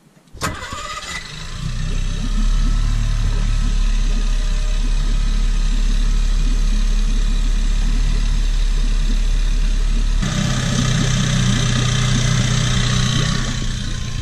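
A boat's outboard engine starting about half a second in and settling into a steady run, tested through its newly fitted Morse throttle-and-shift control cable. About ten seconds in its note changes as it is worked through the control lever.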